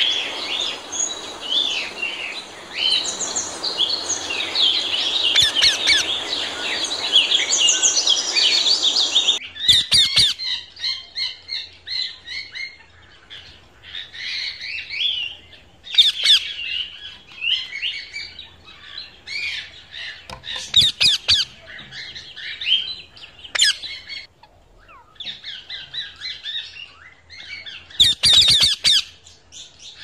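Parrots squawking and chirping in many short, rapid calls. For the first nine seconds they sit over a steady high hiss and a low background noise, which cut off abruptly.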